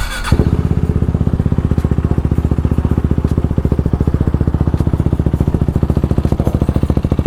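KTM Duke 390's single-cylinder engine idling with its exhaust silencer removed: a loud, rapid, even popping beat that comes in sharply just after the start and holds steady.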